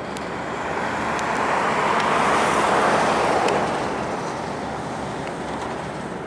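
A road vehicle passing by: a noise with no clear pitch that swells to a peak about halfway through, then fades away.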